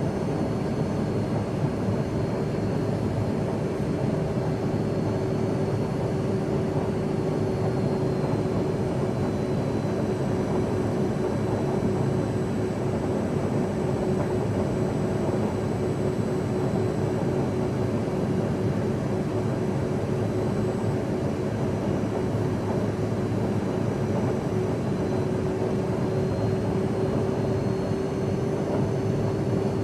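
Learjet cabin interior in flight: a steady jet engine and airflow rumble with a constant tone and a thin high whine over it. The engine tones sag slightly in pitch and come back up near the end.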